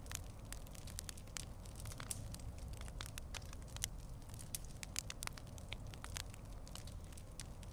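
Campfire crackling: irregular sharp pops and snaps, several a second, over a steady low rumble of light breeze.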